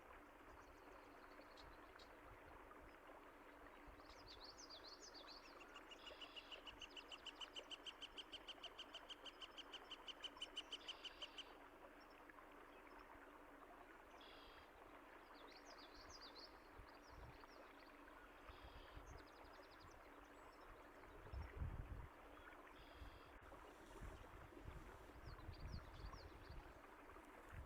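Water running steadily and softly, with small birds chirping over it; a few seconds in, one bird gives a rapid, even trill lasting about five seconds. Low rumbles come in during the last few seconds.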